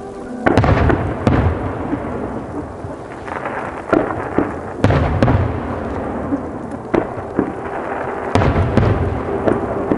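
Aerial firework shells bursting overhead, a run of sharp booms every second or two, each trailing off in a long echoing rumble.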